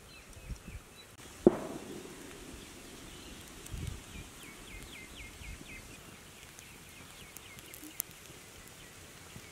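Open wood fire burning under a grill, with one loud sharp pop about a second and a half in and a small crack near the end. Rapid high chirping runs in the background through the middle.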